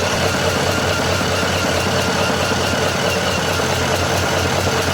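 Small sewing machine running steadily as it stitches fabric: an even motor hum with fast, regular ticking from the needle mechanism.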